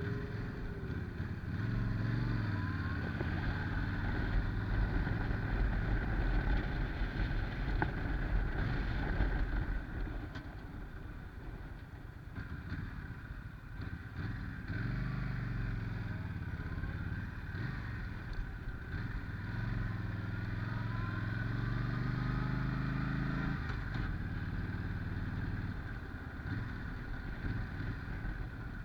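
Yamaha Stryker's V-twin engine running under way, swelling twice as the bike pulls and easing off in between, with wind buffeting the microphone.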